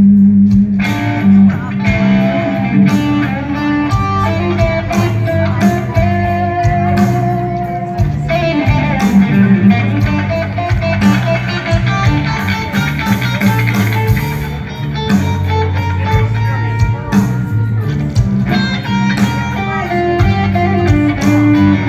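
Amplified electric guitar played live, picked lead lines over a low bass part, with a long held note that wavers in pitch about five to eight seconds in.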